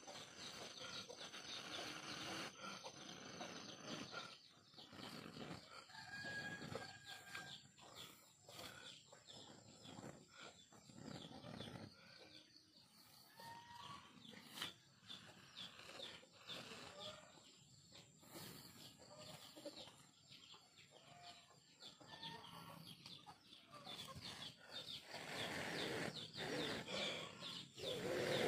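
Chickens clucking, with a rooster crowing, over scattered faint crackles and clicks. Near the end a louder rushing noise comes in.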